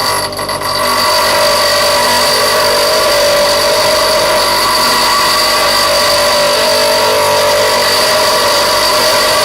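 Bench grinder with a tool pressed against the spinning wheel: a loud, steady grinding hiss with high ringing tones, building up within the first second and then holding steady.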